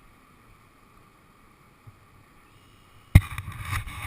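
Quiet background, then a sudden sharp thump about three seconds in, followed by about a second of rough, low noise.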